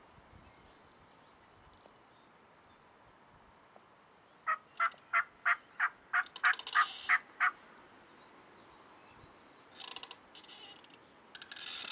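Wild turkey yelping: a run of about ten sharp, evenly spaced notes, roughly three a second, starting about four and a half seconds in, followed by a shorter, rougher burst of calling near ten seconds in.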